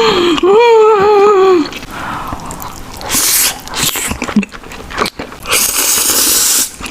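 Spicy instant noodles being slurped in two long, loud slurps, with chewing and mouth clicks between. A brief wavering vocal sound comes in the first second and a half.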